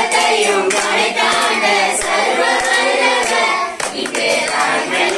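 A congregation singing together, with hand clapping.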